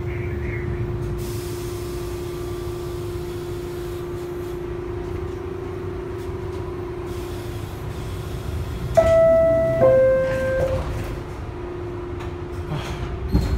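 Inside an R62A subway car: a steady rumble and hum. About nine seconds in comes a loud two-note descending chime, the door-closing signal. A sharp knock follows at the very end.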